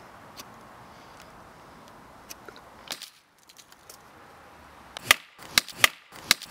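Faint background with a few light clicks, then, about two seconds before the end, four loud sharp wooden cracks in quick succession: a stick being whacked against a tree trunk.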